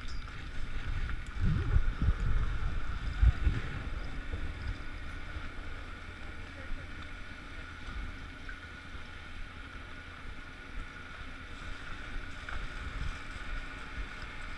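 Steady mechanical hum of a chairlift bottom station's machinery running, with a few steady tones in it. During the first few seconds there are low rumbles and knocks close to the microphone.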